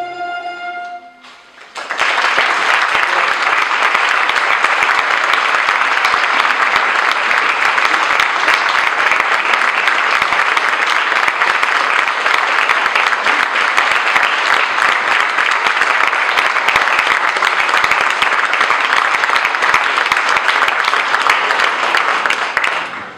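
The last held chord of a pulso y púa plucked-string orchestra dies away within the first second. After a short gap, an audience applauds steadily and loudly for about twenty seconds, and the applause falls away near the end.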